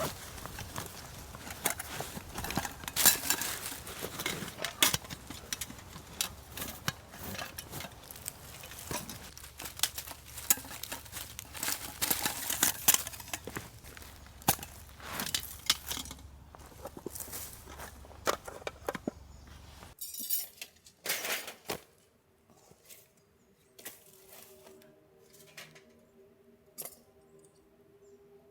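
Handling noises: many small clicks, clinks and rustles. About twenty seconds in they stop abruptly, leaving a much quieter stretch with a few sharp clicks and a faint steady hum of several tones.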